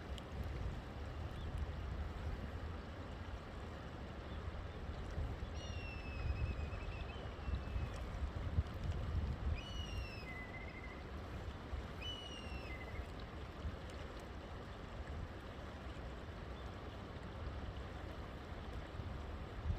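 River water flowing steadily. A bird calls several times in the middle with short whistled notes that slur downward.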